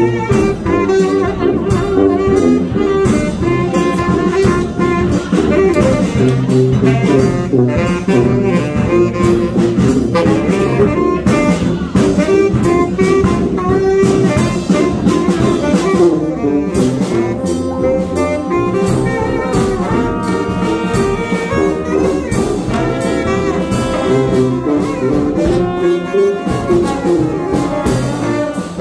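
Live brass band playing jazz, with saxophone, trumpet, trombone, sousaphone and bass drum.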